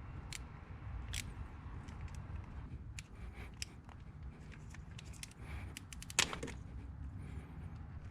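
Scattered small clicks and taps of a flathead screwdriver and hand tools being handled, with one louder click about six seconds in, over a low steady hum.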